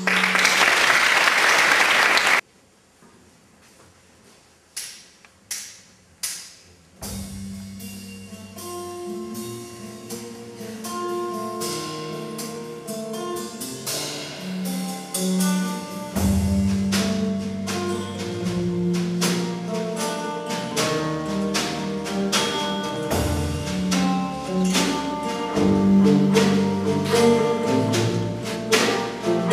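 A short burst of applause that cuts off abruptly, then a few single plucked notes, and about seven seconds in a band starts playing a carol: acoustic guitars strumming over sustained bass notes in a steady rhythm.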